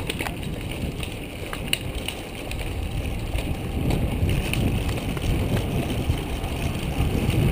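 Road bicycle riding in a pack: wind rumbling on the camera's microphone and tyre noise on asphalt, with a few sharp clicks.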